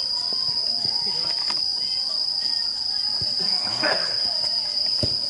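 A steady, high-pitched insect trill, typical of crickets, with a few knocks from feet and the ball on the turf and a faint shout about four seconds in.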